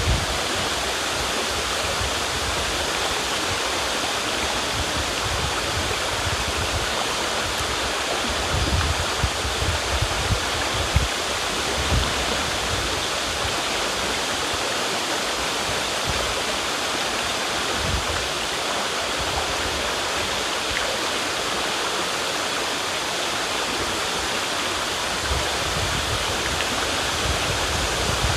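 River water rushing steadily, with occasional low rumbles underneath.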